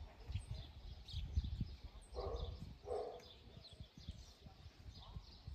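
Wind rumbling on the microphone, with small birds chirping repeatedly. A dog gives two short barks a little over two seconds in.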